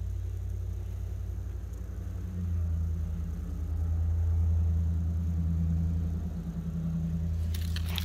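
A low, steady hum that swells in the middle and eases again, with a brief rattle of handling noise near the end.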